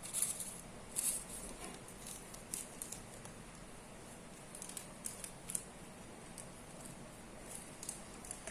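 Kitchen handling sounds: scattered short, sharp crinkles and clicks, the loudest near the start and about a second in, with more around the middle and near the end, as filled pau bun dough is shaped and set down.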